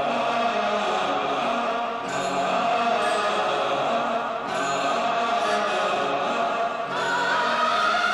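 Background music of slow, sustained chant-like voices or choir, with drawn-out phrases that change every couple of seconds and a higher held line near the end.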